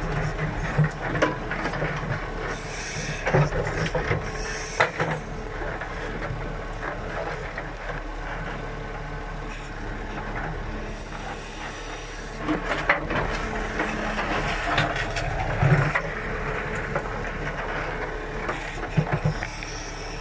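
JCB 3CX backhoe loader's diesel engine running steadily while the backhoe arm works, with repeated sharp knocks and clanks from the bucket and arm against stones and soil.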